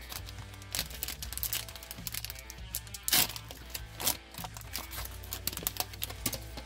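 Foil wrapper of a MetaZoo trading-card booster pack crinkling and tearing as it is opened by hand. The crackles are irregular and come loudest about three seconds in, over quiet background music.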